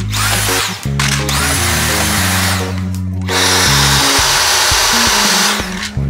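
Dyson V8 Slim Fluffy cordless stick vacuum with its soft-roller head, vacuuming wooden stair treads. Its motor cuts out and starts again three times, each restart a quickly rising whine as the motor spins up, then runs steady and louder near the end. Background music plays underneath.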